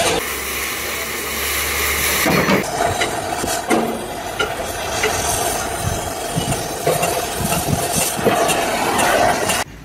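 Oxy-fuel cutting torch hissing steadily as it burns through rusted steel bodywork, with scattered short metallic knocks.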